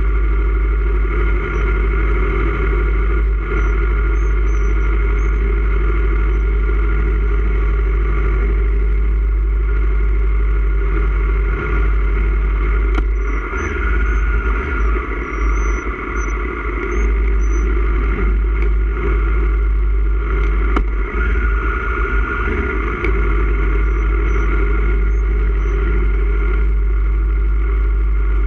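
Aprilia Tuono Factory 1100's V4 engine running steadily at low speed through a baffled Austin Racing GP1R exhaust can, heard close up from an onboard camera.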